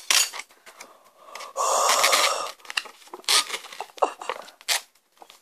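Paper-foil lid of a foam cup-noodle bowl being handled and peeled back: light rustling and clicks, with about a second of loud scraping, tearing noise around a second and a half in.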